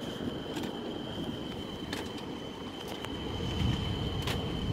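A landed helicopter's turbine running, with a steady high whine over a low rumble. A few light clicks and rattles from a wheeled ambulance stretcher come through, the last one near the end.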